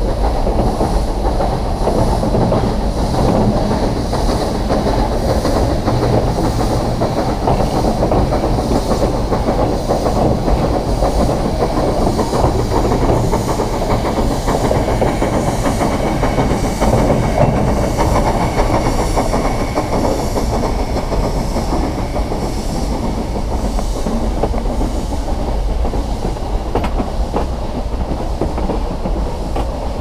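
Nilgiri Mountain Railway train running along its metre-gauge track: a steady rumble with the wheels clacking over the rail joints.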